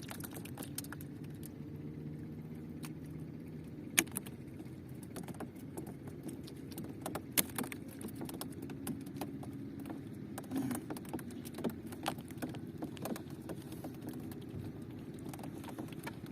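Boat engine running steadily with a low drone, with scattered sharp clicks and knocks throughout; the loudest knocks come about four seconds in and again a few seconds later.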